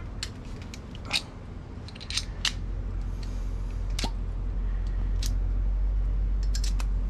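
Scattered light clicks and taps of a hand tool and wiring being handled at an RV absorption fridge's access panel. Underneath is a low, steady rumble that grows louder about two seconds in.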